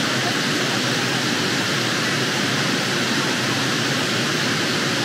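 Steady rush of a waterfall and whitewater cascades over granite boulders, the creek running high with water after days of rain.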